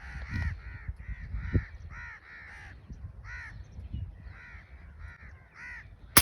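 Crows cawing over and over, several calls a second. Near the end comes a single sharp crack of a shot, the loudest sound, from an FX Crown air rifle.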